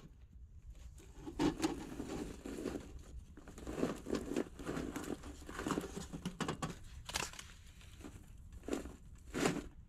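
A mud-encased lump of meat scraped and shoved into the firebox of a small steel wood stove, its dry mud crust grating against the metal door frame and the embers in uneven strokes. A few sharper knocks come near the end.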